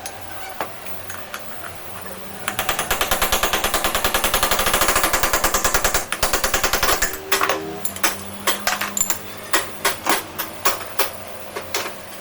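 Rapid mechanical knocking, about a dozen strikes a second for several seconds, that then slows to irregular, more widely spaced knocks before stopping.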